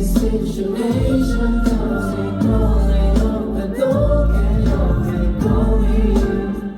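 Pop song played live over a concert sound system: sung vocals over a backing track with heavy bass and a steady drum beat.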